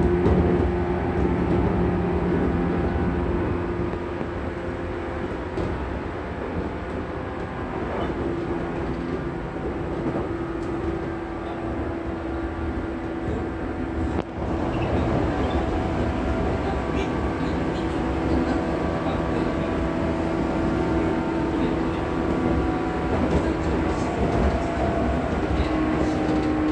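Ride in the motor car MoHa 415-1517 of a 415 series electric multiple unit running at speed. The MT54 traction motors and gearing hum steadily over the rumble of the wheels on the rails.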